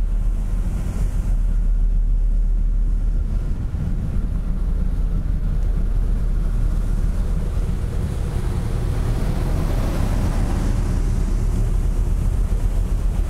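Car ferry's diesel engines giving a deep, steady exhaust rumble from the funnel, with wind on the microphone. A rushing hiss swells about ten seconds in.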